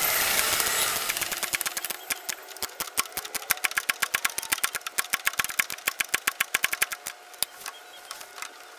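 Hand ratchet wrench clicking rapidly in runs as a fastener is turned, with a rustling scrape over the first second or two. The clicking thins out and stops about seven seconds in.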